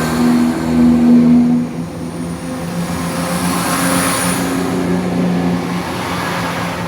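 Diesel multiple-unit train's engines running with a steady drone. A higher note stops about two seconds in while a lower note carries on.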